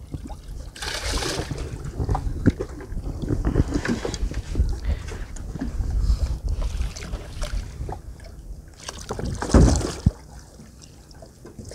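Water splashing as a hooked golden dorado is held at the surface beside the boat, over a steady wind rumble on the microphone. There are two louder splashes, about a second in and near the end.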